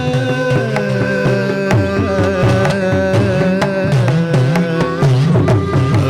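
Live Indian classical (Carnatic-style) music: a hand drum plays quick strokes with low swooping bass tones over a steady drone, while a wavering melodic line carries on above.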